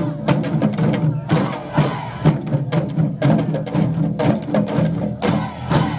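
Korean pungmul percussion ensemble playing: a fast, dense run of gong and drum strikes over a steady ringing low tone.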